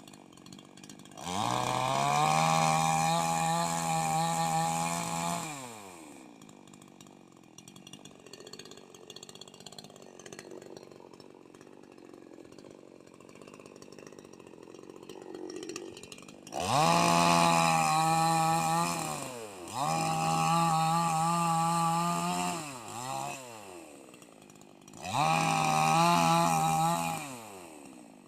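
Petrol chainsaw's two-stroke engine idling, with the throttle opened to high speed four times for a few seconds each and a short blip, the pitch rising sharply each time and falling back to idle.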